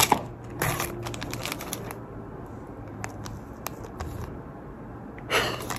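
Rustling and small clicks of jewellery packaging being handled while a bracelet on its card is taken out, with a louder crinkle near the end.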